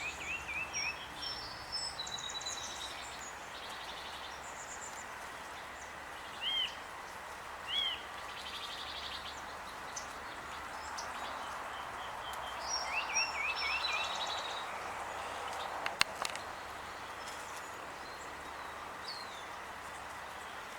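Small songbirds chirping: short runs of quick chirps several times, with scattered higher calls, over a steady outdoor background hiss. A single sharp click about sixteen seconds in.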